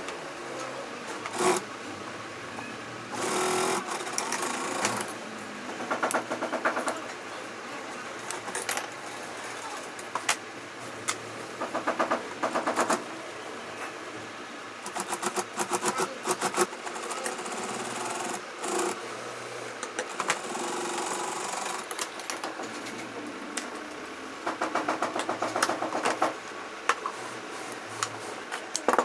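Industrial sewing machine stitching leather in short runs of rapid needle strokes, stopping and starting again many times.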